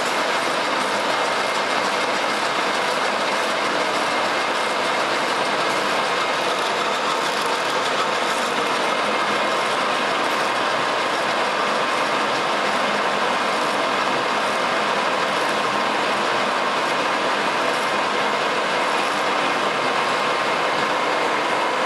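American Pacemaker engine lathe rough-cutting a spinning steel disc with a carbide insert, the tool feeding in across the face and throwing off chips. A steady, even cutting noise that stops abruptly at the end.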